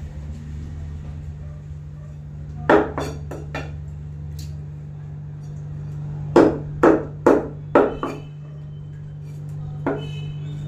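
Butcher's cleaver chopping raw chicken on a wooden chopping block: two runs of about four sharp chops each, roughly two a second, over a steady low hum.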